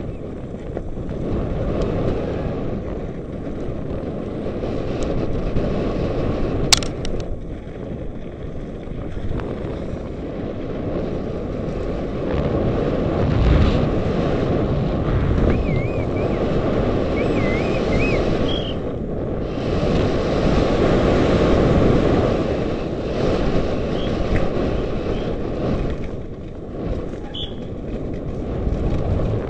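Wind rushing over a helmet-mounted camera's microphone and downhill mountain-bike tyres running over a fast dirt and gravel track, the noise swelling and easing with speed. There is a sharp click about seven seconds in and a short warbling high tone about halfway through.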